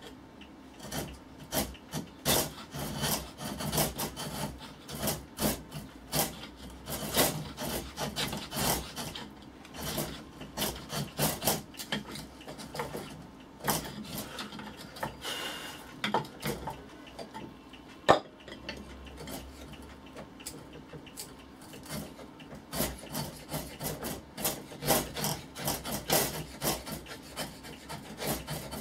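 Hand file scraping back and forth on a hardwood plane body in short, irregular strokes, taking off a little wood at a time to widen a fit that is still too tight. One sharp click about two-thirds of the way through.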